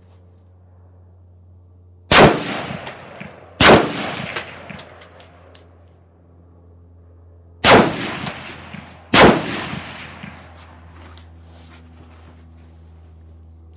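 Four rifle shots in two pairs. The shots within each pair are about a second and a half apart, and the pairs are about four seconds apart. Each shot echoes briefly.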